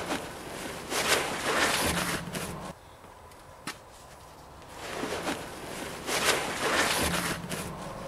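Heavy canvas cover rustling and flapping as it is pulled off a metal toolbox, in two spells of a few seconds each with a short pause and a light knock between them.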